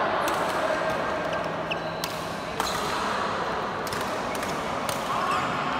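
Badminton rackets striking shuttlecocks, a sharp hit every second or so, over the steady hum of a large, echoing sports hall with faint voices.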